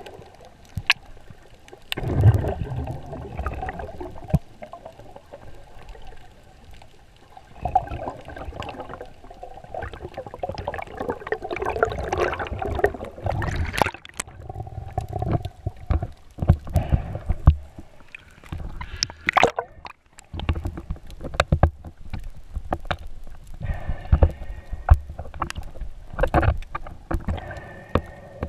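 Muffled underwater sound picked up through a GoPro's waterproof housing as a spearfisher swims over the seabed: irregular surges of gurgling and sloshing water, scattered with sharp clicks and knocks.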